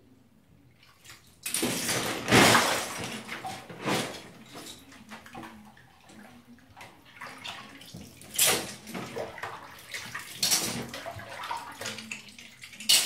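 Hands sloshing and splashing in a bathtub of soapy water while washing loose Lego pieces. Quiet for the first second or so, then irregular bursts of splashing, loudest about two seconds in and again near the end.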